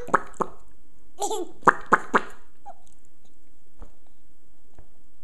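A young child giggling with the hiccups: a few short, sudden hiccup-broken laughs between about one and two seconds in, after which it dies down to a few faint clicks.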